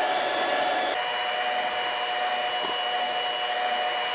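Electric mixer running steadily with a motor whine as it beats chilled heavy cream with sugar and vanilla, close to stiff peaks.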